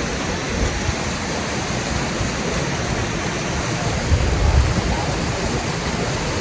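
Steady rushing of water and wind, with a louder low rumble about four to five seconds in.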